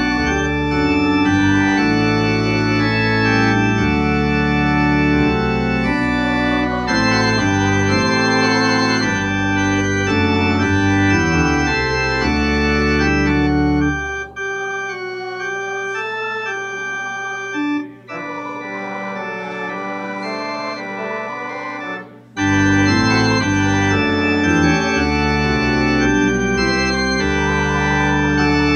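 Church organ playing sustained chords of a hymn-style piece. The deep bass notes drop out about halfway through and come back after roughly eight seconds.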